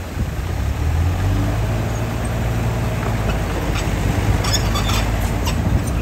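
Heavy diesel engines of a D60 bulldozer and a 25-tonne dump truck running as the truck raises its tipper bed. The engine note gets louder about a second in, and scattered knocks come in the second half.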